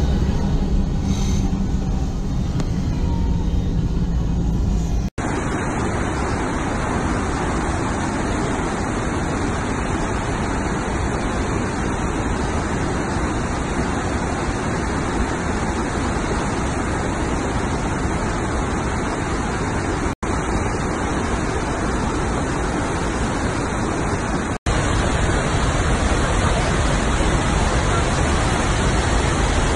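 A large waterfall's steady roar takes over about five seconds in and runs on unbroken except for two short dropouts. Before it, a low steady rumble of wind or traffic noise is heard.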